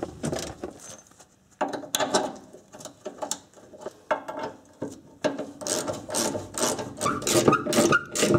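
Hand socket ratchet clicking as strut mounting bolts are run in. It clicks in short bursts at first, then in a fast, continuous run from about five seconds in.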